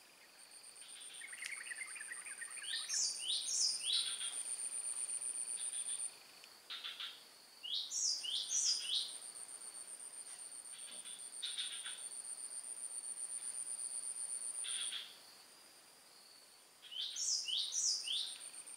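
Outdoor insect and bird ambience. A high, fast-pulsing insect trill runs for a few seconds, breaks off and starts again. Three times a bird gives a quick phrase of three or four sweeping notes, louder than the trill.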